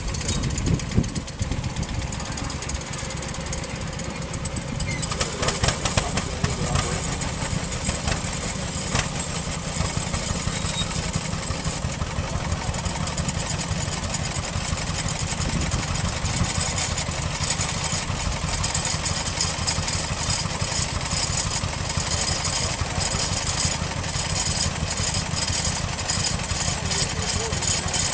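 An engine running steadily at idle, with a dense, even low rumble that turns busier about five seconds in. Faint voices are heard over it.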